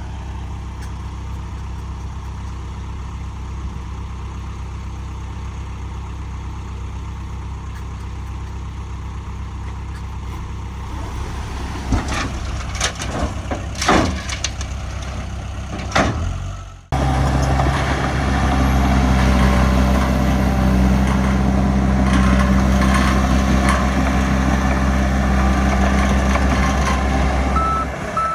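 Heavy diesel engine of earth-moving machinery running steadily at idle, with a few sharp clanks and knocks about halfway through. Then, after an abrupt change, a louder engine runs steadily.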